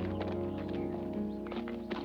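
Music: held notes with a patter of quick, light taps over them.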